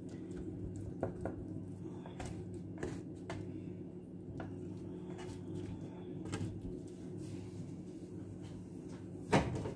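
Black plastic slotted spatula scraping and tapping in an enamel baking dish as a cheese-topped potato gratin is cut and lifted: a few soft clicks over a steady low hum, with one sharper knock near the end.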